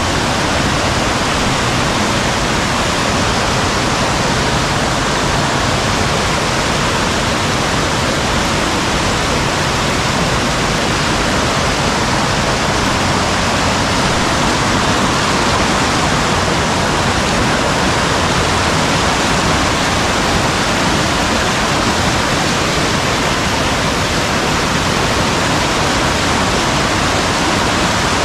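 Steady, loud rush of water from a mountain valley stream running high in heavy rain.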